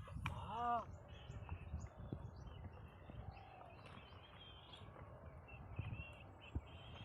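Faint birds chirping, with short calls repeating throughout, over a low rumbling background with a few soft knocks.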